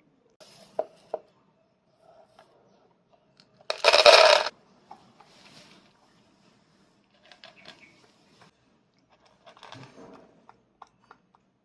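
Dry cat food poured into a bowl: one loud rattle of hard pieces lasting under a second, about four seconds in, with scattered light clicks and taps around it.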